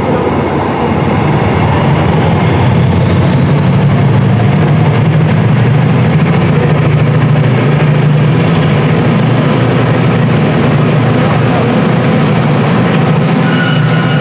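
TransPennine Express class 68 diesel locomotive pushing its Mk5a coaches past the platform, a steady low engine hum growing louder as the locomotive nears, with a few higher whining tones near the end as it passes.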